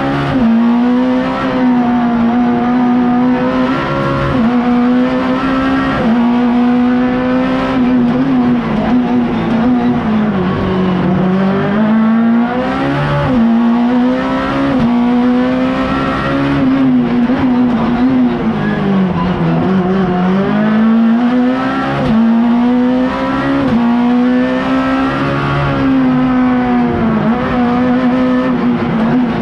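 Race car engine heard from inside the cabin, held at high revs through a slalom, its pitch dipping and climbing back several times as the driver lifts off and changes gear between cone chicanes.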